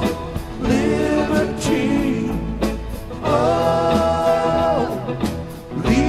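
Background music: a song with a singer holding long notes over a low bass accompaniment.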